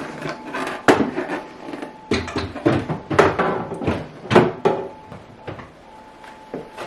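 A string of irregular knocks and clatters as things are handled, set down and slid into place in a refrigerator, about ten sharp hits with some ringing, busiest in the first five seconds.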